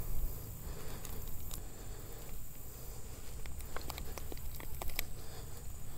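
Small sharp clicks and handling noises from hands working a soft-plastic worm's hook out of a largemouth bass's mouth, thickening in the second half, over a low steady rumble.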